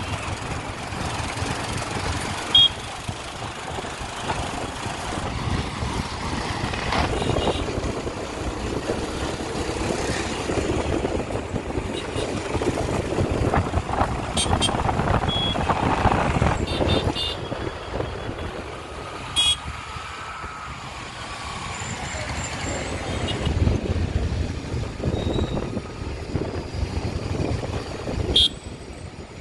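Motorcycle riding through busy town traffic: a steady mix of engine, tyre and wind noise with passing vehicles, and a few short high beeps or horn toots.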